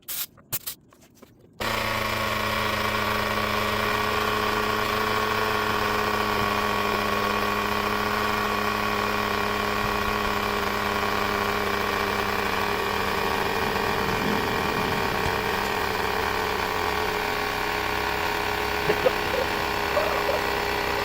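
Small portable air compressor in a jump-starter pack switching on and running steadily with a constant buzzing drone, after a few clicks.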